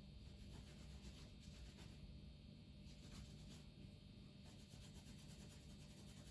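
Near silence: faint room tone with a few soft scraping or handling noises.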